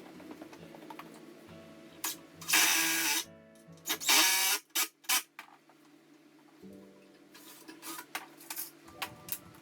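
Background music, broken by two short, loud bursts of a power drill driving wood screws about two and a half and four seconds in, then a few lighter clicks near the end.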